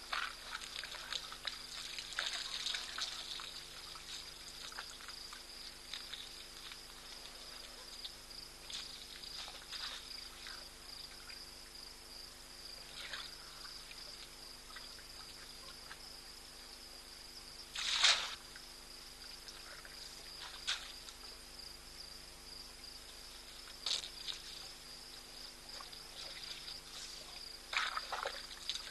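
A steady, high-pitched insect chorus with irregular water splashing and trickling as elephants drink at a waterhole. The loudest splash comes about halfway through, and a cluster of splashes comes near the end.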